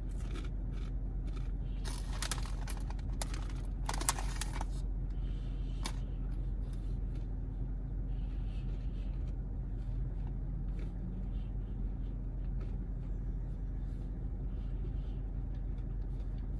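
Apple cinnamon rice crisps being bitten and crunched, with two louder crackly bursts about two and four seconds in and quieter chewing after, over a steady low hum.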